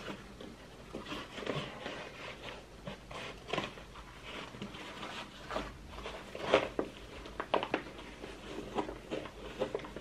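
Rustling and scattered short clicks of a 600-denier fabric tactical shoulder bag being handled as a hard drive is slid into it, with the sharpest click about six and a half seconds in.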